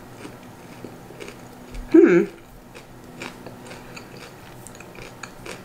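A person chewing a mouthful of tuna salad sandwich on toasted bread, with soft scattered crunching clicks. About two seconds in, a short hum from the eater.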